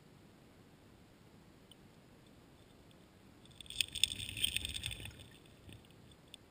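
Heard underwater: about midway, a burst of gravel clattering and crackling lasting about a second and a half, over a low rumble. It comes from a coho salmon's body and tail thrashing against the streambed gravel, typical of spawning activity on the redd.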